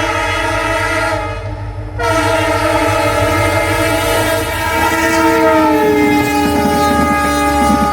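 Horn of an EMD WDP-4-series diesel locomotive sounding a loud, continuous multi-note chord over the rumble of the train. The horn dips briefly about a second in and comes back in full at two seconds. In the second half its pitch slides gradually down as the locomotive passes.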